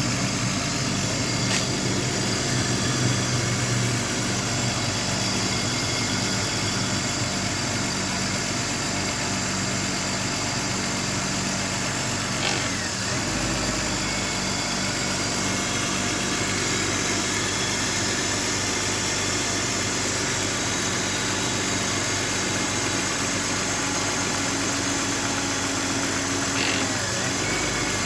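BMW E39's M52B28TU 2.8-litre straight-six engine idling steadily; the owner describes the idle as rough and misfiring.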